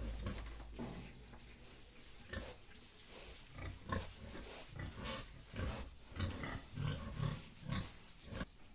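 Pigs grunting: a run of short grunts, starting about two seconds in and coming roughly every half second.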